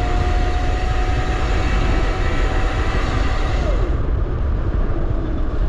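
Razor RSF650 electric motorcycle's motor whining at one steady pitch over heavy wind rush on the microphone while riding. About three and a half seconds in, the whine falls in pitch and fades away.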